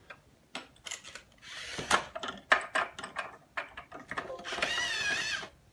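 Light clicks and knocks of plastic toy truck parts being handled and fitted together. Near the end there is a brief wavering high-pitched sound.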